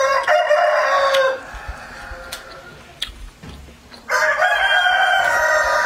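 A rooster crowing twice: a long crow right at the start, and a second starting about four seconds in, each dropping in pitch as it trails off.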